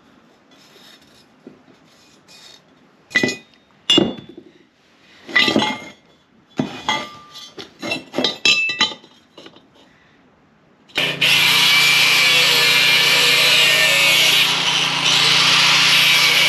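Pieces of square steel tubing clanking and scraping as they are handled on a wooden bench. About eleven seconds in, an angle grinder starts and runs steadily with its disc against steel.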